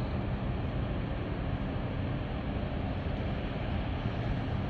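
Steady low rumble of the 9,572 TEU container ship CSCL Zeebrugge under way as it passes close by, mixed with wind on the microphone.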